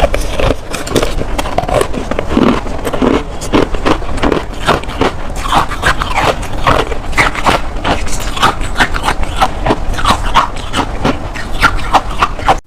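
Freezer frost crunching and squeaking in a dense, rapid, uneven run of crunches that stops abruptly at the end.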